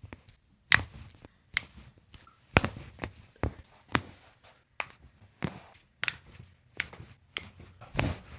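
A run of sharp clicks and taps, one or two a second, from hands working on a patient during a chiropractic treatment.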